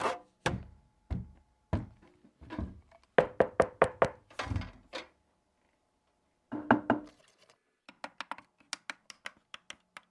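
Short knocks and clicks from handling and pressing buttons on a portable Bluetooth speaker during setup. They come in irregular clusters, with a pause in the middle and a run of quick light clicks near the end.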